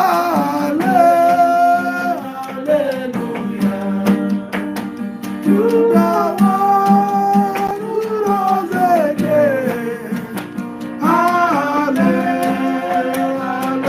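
Worship song: a voice holding long, gliding notes without clear words over acoustic guitar accompaniment.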